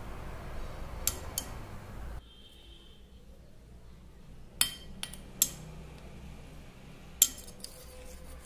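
Metal spoon stirring a watery spice paste in a stainless steel bowl, clinking against the bowl's side about five times, two of them in quick succession. A low background hum cuts off suddenly about two seconds in.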